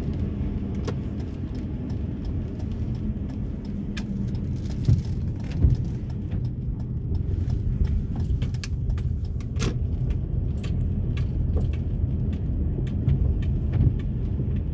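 Car cabin noise while driving on a wet road: a steady low rumble from the tyres and engine, with scattered sharp ticks and clicks at irregular intervals.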